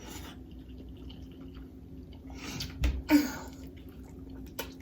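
Noodles being eaten: wet slurping and chewing sounds, with a low thump just before three seconds in.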